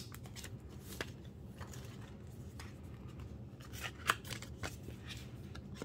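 A few scattered light clicks and taps from album packaging and photocards being handled and sorted, over a low steady background hum.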